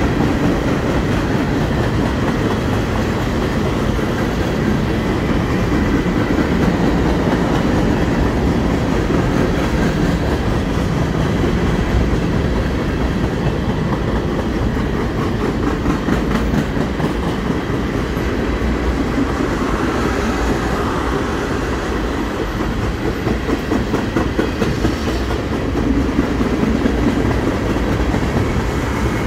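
CSX freight train's cars, tank cars and centerbeam flatcars, rolling steadily past: a continuous rumble of steel wheels on the rails with a clickety-clack rattle.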